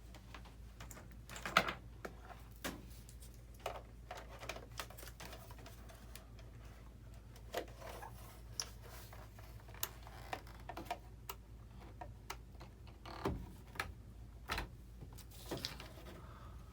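Scattered light clicks and taps from small parts and tools being handled on a model airplane at a workbench, irregular and unhurried, with a firmer knock about 13 seconds in, over a steady low hum.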